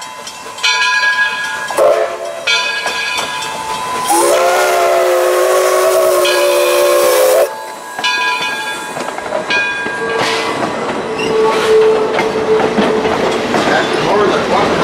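Edison steam locomotive passing close by: a bell ringing at intervals, and one long whistle blast of several tones together, about three and a half seconds, starting about four seconds in. After it the engine and its coaches roll past with hiss and wheel clatter.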